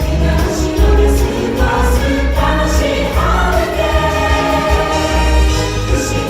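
Music with a choir singing over a pulsing bass beat.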